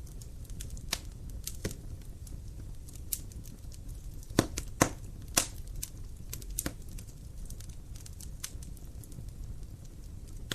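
Wood fire burning in a fireplace, crackling with scattered sharp pops over a low steady rumble; a few louder pops come together in the middle.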